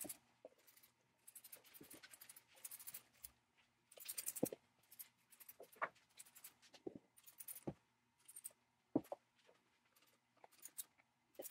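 Hand trigger spray bottle squirting liquid onto a cast-iron forge base in runs of short spraying hisses, with light clicks and knocks from the bottle and the metal being handled.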